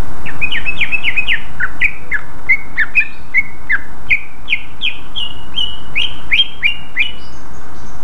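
Cucak ijo (green leafbird) in full song: a fast run of short, clear, mostly downslurred whistled notes, about three a second, the later ones higher and flatter. A steady hiss lies underneath.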